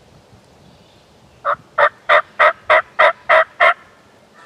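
A hunter's turkey call run as a series of eight evenly spaced hen yelps, about three a second, meant to sound like a hen moving away to draw in a silent gobbler.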